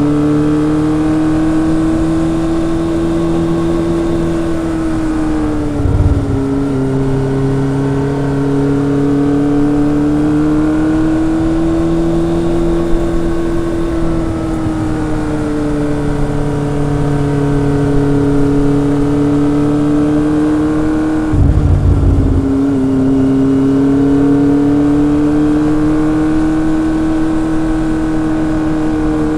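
Kawasaki ZRX's four-cylinder engine and exhaust running under way at moderate, steady revs, the pitch rising and falling gently with the throttle. Twice the pitch dips briefly with a short rush of noise, about six seconds in and again at about 21 seconds.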